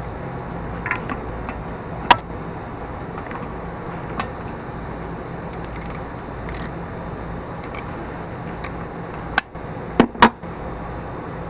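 Scattered metallic clicks and taps of hand tools and fasteners as the mower engine's cover is screwed back on, with two loud sharp knocks near the end, over a steady low background hum.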